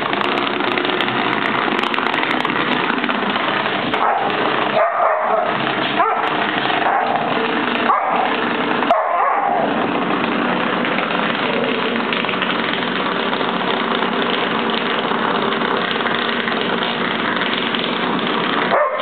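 Vibrating ladybug massager buzzing steadily on a wood floor. Between about four and ten seconds in, the buzz breaks briefly a few times and a few short dog vocalizations are heard.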